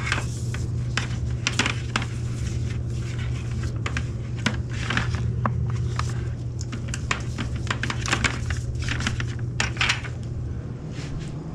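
Extension cord being coiled by hand into a plastic bucket: the cord swishes and knocks against the bucket in a run of scattered clicks and rustles. A steady low hum runs underneath and drops about ten seconds in.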